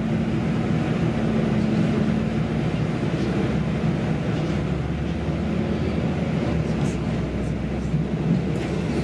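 Regional diesel multiple unit running along the line, heard from inside the carriage: a steady rumble and hum of engine and wheels on rails. An engine tone fades out about two seconds in, and a deeper rolling rumble builds near the middle.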